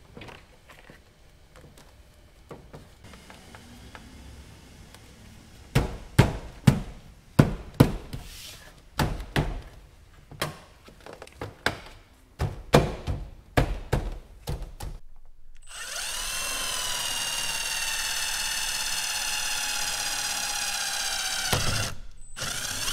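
Sharp knocks and thumps as a plastic Nissan 240SX door panel is pressed and tapped into place against the door. Then a Milwaukee cordless drill runs steadily for about six seconds, its whine sagging slightly in pitch as the bit bores a mounting hole through the panel, with a short burst of drilling near the end.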